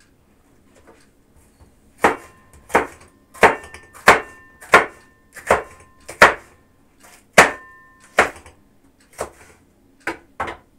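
Kitchen knife chopping a red bell pepper into strips on a wooden cutting board: about a dozen separate knocks, roughly one a second, starting about two seconds in, some with a short metallic ring.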